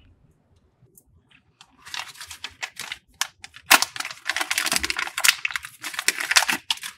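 Thin black plastic parts packet crinkling and crackling in the hands as it is handled and opened, starting about two seconds in.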